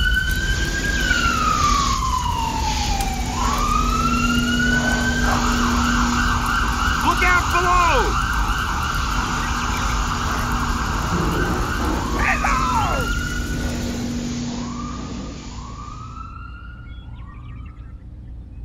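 A siren wailing, its pitch sweeping slowly up and down, over a steady hiss. The siren and hiss fade out about three-quarters of the way through, and a few short chirps follow near the end.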